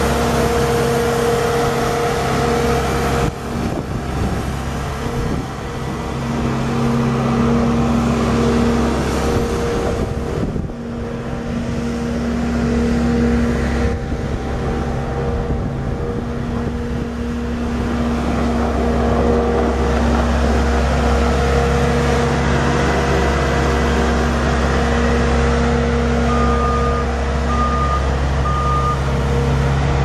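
Bobcat S650 skid steer's Kubota V3307 3.3-litre four-cylinder turbo diesel running steadily, its note shifting a few times. Near the end its backup alarm beeps three times.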